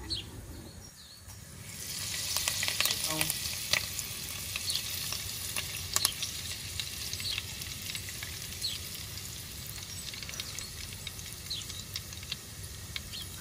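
Hot olive oil in a clay pot sizzling as mustard seeds, curry leaves and chopped ginger fry in it for a tadka. Quiet at first, then about a second and a half in the sizzle jumps up sharply, with many crackles and pops, and keeps on.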